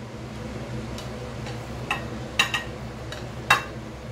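Plastic rice paddle scooping cooked rice out of a metal pot into a glass bowl, giving a handful of sharp knocks and taps on the cookware, the two loudest about a second apart, over a steady low hum.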